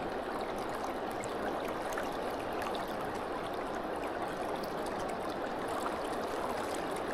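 Shallow river water flowing, a steady even rush with faint small splashes.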